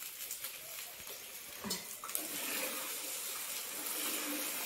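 Egg poli sizzling in oil in a pan: a steady frying hiss, with a couple of small knocks about two seconds in.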